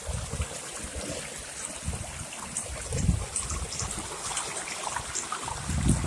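Water running in a small stream, a steady trickle with uneven low rumbles.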